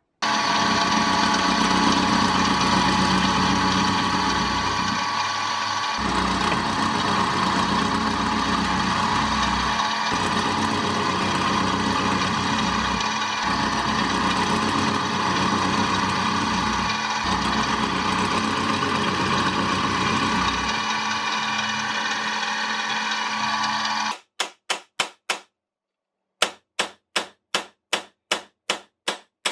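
Drill press running as a twist bit drills out a rivet in a brass bottle corker's hinge, a steady motor and cutting noise whose low end wavers with the feed pressure. It cuts off abruptly, followed by sharp hammer taps on a pin punch, about three a second with a short pause, driving the pin out.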